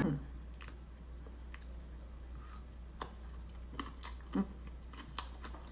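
A person chewing food with scattered soft mouth clicks and smacks, over a steady low hum.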